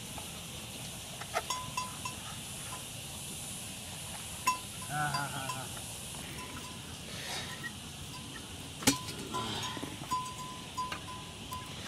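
Livestock around a herder's shed: a short wavering bleat about five seconds in, light pings now and then, and a few sharp knocks, the loudest near nine seconds.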